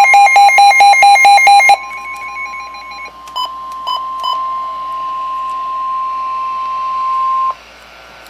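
Emergency alert warning tone, a single steady high pitch in the manner of the National Weather Service's 1050 Hz alarm, announcing a flood warning. For the first couple of seconds rapid electronic beeps repeat about five times a second over it, and three short beeps come through around the middle. The tone cuts off suddenly near the end, leaving faint hiss.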